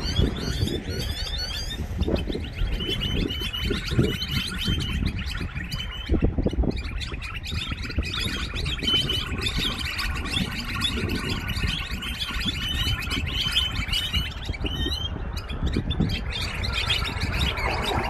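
A flock of small songbirds chirping and twittering, many short calls overlapping without pause, over a steady low rumble.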